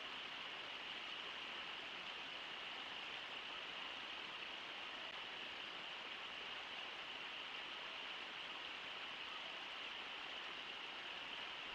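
Steady rush of water from the Brooks River pouring over Brooks Falls, an even hiss with no breaks.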